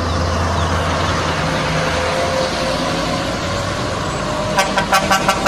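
Heavy lorries' diesel engines running with a steady low rumble and road noise. Near the end comes a quick run of sharp clicks.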